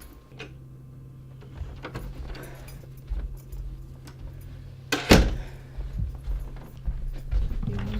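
Small knocks and clicks over a steady low hum, with one loud sharp thud about five seconds in. The hum stops shortly before the end.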